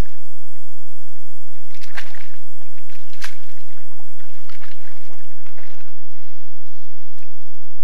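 Wild boar foraging in wet mud at the edge of a swamp pool: scattered squelches, sloshes and rustles as it noses and roots, loudest around two and three seconds in and again in a cluster of them a little later, over a steady faint hum.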